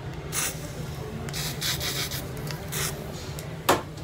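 A spray bottle hissing in three short bursts, the middle one longest. Near the end comes a single sharp click, the loudest sound.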